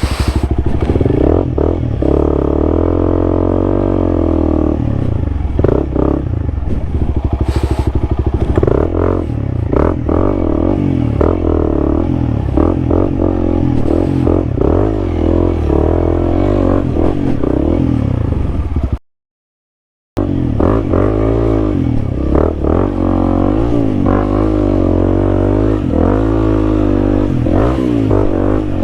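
Honda CRF300L's single-cylinder four-stroke engine revving up and down over and over as the bike is worked back and forth while stuck in mud. The sound cuts out for about a second near two-thirds of the way through.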